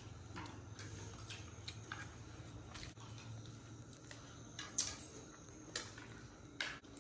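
Faint eating sounds: a spoon clicking against a plate every so often, with chewing, over a low steady hum.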